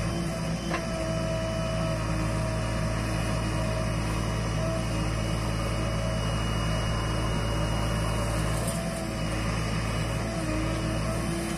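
JCB 3DX backhoe loader's diesel engine running steadily under hydraulic load while the backhoe arm digs soil and swings to dump it into a tipper truck.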